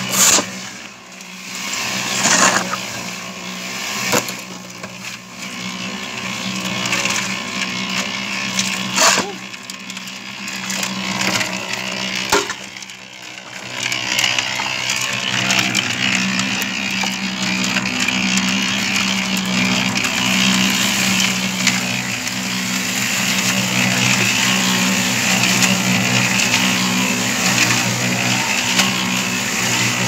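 Electric portable drum concrete mixer running, its motor humming steadily while gravel and wet concrete tumble in the turning drum. There are a few sharp shovel knocks in the first half as material is loaded, and the rattle of the churning mix grows louder about halfway through.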